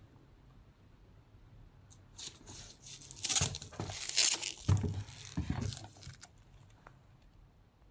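Packaging being unwrapped by hand: rustling, crinkling and tearing from about two seconds in until about six seconds, with a couple of soft knocks in the middle.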